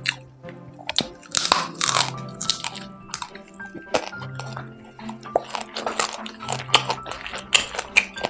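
Close-up eating sounds: repeated crunching and chewing, typical of biting into fried quail, over background music with steady low notes.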